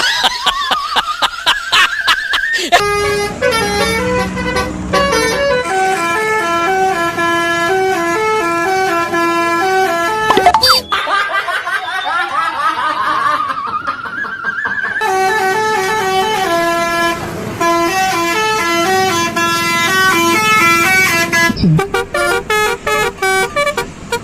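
Telolet bus horn playing a basuri melody: a rising siren-like sweep, then a stepping tune of held horn notes. The sweep and tune play twice, with a third rise starting near the end.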